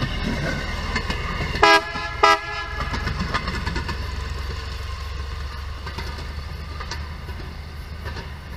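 A motorized railroad speeder running on the rails and pulling away, its running sound slowly fading, with two short horn toots about two seconds in.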